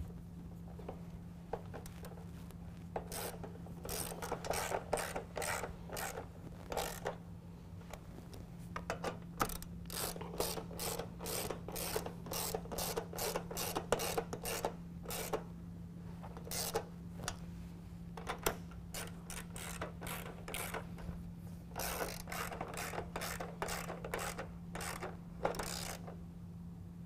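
Hand socket ratchet clicking as nuts are tightened down, in several quick runs of rapid clicks with short pauses between them.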